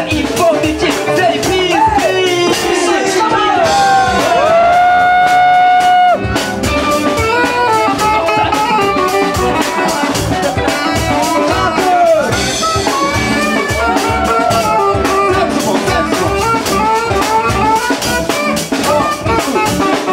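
Live band playing an upbeat tune with drums, guitars and saxophone; a long held note sounds from about four seconds in to about six seconds.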